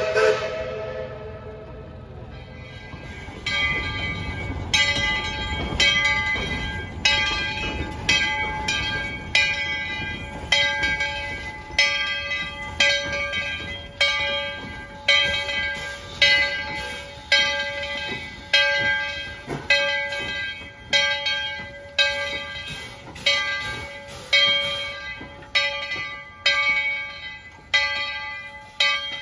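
Steam locomotive bell on ET&WNC No. 12, a 4-6-0, ringing steadily about once a second as the engine gets under way.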